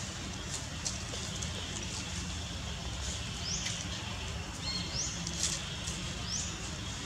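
Outdoor forest ambience: three short, high chirps rising in pitch come in the second half, over a steady low rumble and a few faint clicks.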